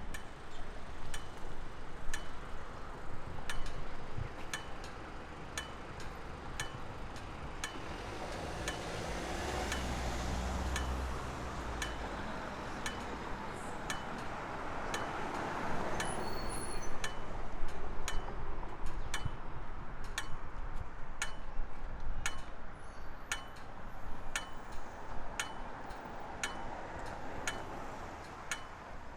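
Pedestrian crossing push-button unit ticking its steady locator beat, about three ticks every two seconds, over street traffic, with a vehicle passing about a third of the way in.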